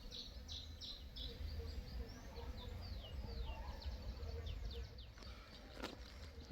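Small songbird singing outdoors: a fast, continuous run of short, high chirps, many sweeping downward, over a low steady rumble, with a sharp click near the end.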